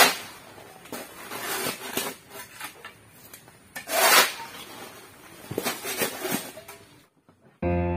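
Steel shovel scraping across a concrete yard through wet flood silt and gravel, in several separate strokes, the loudest right at the start and about four seconds in. Background music begins just before the end.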